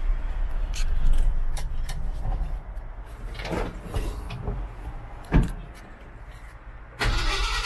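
1969 Ford F250's engine turning over and running unevenly after a start attempt, its low rumble fading away about halfway through, with scattered clicks and one sharp knock. A louder rush of noise starts abruptly near the end.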